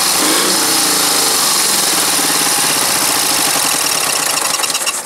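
Ural motorcycle's flat-twin engine running loudly and steadily at idle, with an even pulsing beat, then shut off right at the end.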